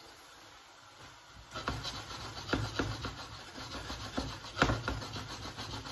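A frying pan being worked on the stove: irregular scraping and rubbing strokes with a few light knocks, starting about a second and a half in.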